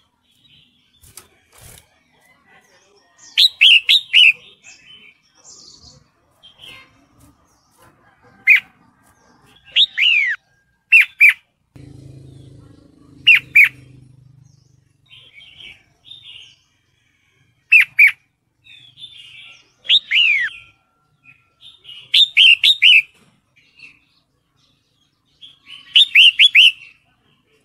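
Red-whiskered bulbul calling in short clusters of two to four quick, sharply falling notes, repeated every two to three seconds. This is a female in breeding condition calling for a male.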